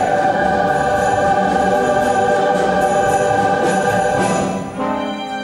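Choral concert music: voices and instruments hold sustained chords while jingle bells are shaken in a steady beat of about three a second. The harmony changes to a new chord near the end.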